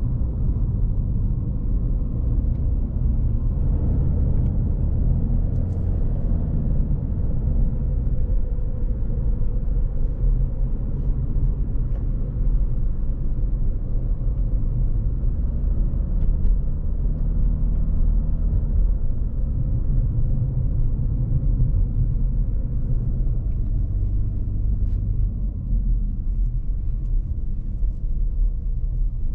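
Road noise heard from inside a moving car's cabin: a steady low rumble of tyres and engine.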